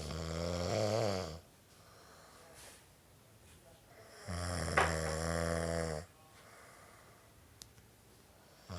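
A man snoring: two long snores, each about a second and a half with a steady low pitch, roughly four seconds apart, and quiet breathing between them.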